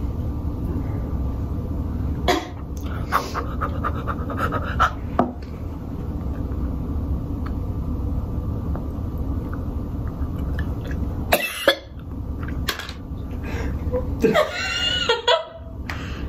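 A person chewing a foul-tasting jelly bean: small mouth and chewing clicks over a steady low hum, a short cough-like burst about eleven seconds in, and a brief voiced sound near the end.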